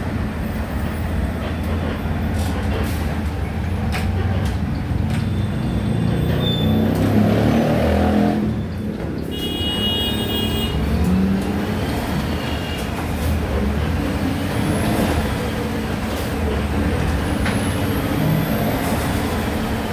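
Volksbus 17-230 OD city bus's natural-gas (CNG) engine running while the bus is under way. The engine sound builds and then drops off sharply about eight and a half seconds in. A brief high beeping tone sounds about a second after the drop.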